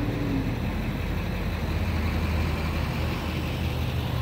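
An engine idling steadily: an even, low hum.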